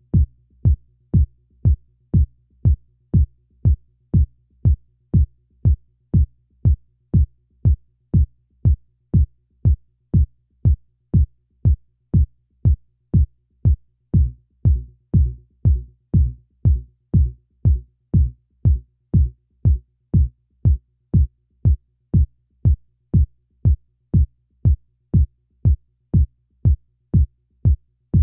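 Kick drum from an electronic drum loop, playing alone through a noise gate: a steady beat of deep thumps, about two a second, each cut off short by the gate. For a few seconds in the middle each hit rings a little longer, as the gate's release is opened up.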